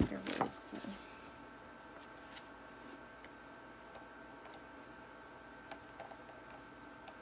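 Paper pages of a hardcover book being handled and turned: a loud rustle in the first second, then scattered faint ticks of paper.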